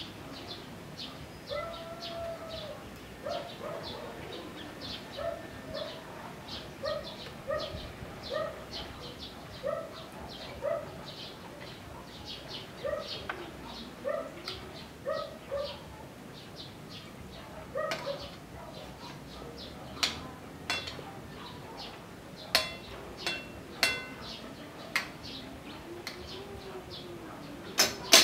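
Birds chirping rapidly, with a repeated lower call, through most of the first two-thirds. In the last third, several sharp clinks of a fork and spoon against a plate.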